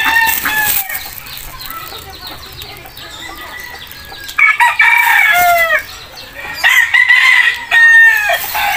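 Rooster crowing several times: once at the very start, loudly about four and a half seconds in, and again near the end.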